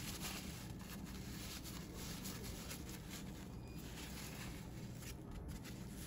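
Faint, irregular rustling and rubbing of a paper towel being handled and wiped over a drain slip nut and washer, over low room tone.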